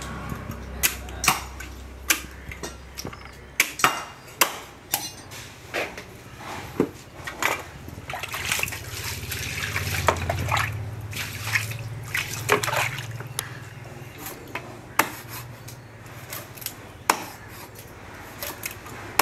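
Large fish-cutting knife chopping a yellowfin trevally on a wooden log block: irregular sharp knocks as the blade strikes through the fish into the wood, with scraping between strokes.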